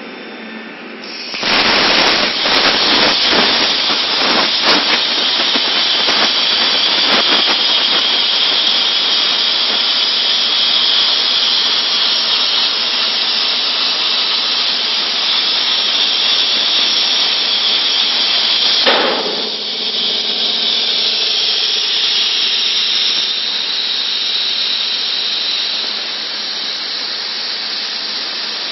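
Plasma cutting torch on a CNC cutting table, its arc starting with a sudden loud hiss and cutting steel plate with a steady hiss. There is crackling over the first several seconds. About two-thirds of the way through a brief snap is heard, and the hiss goes on a little quieter.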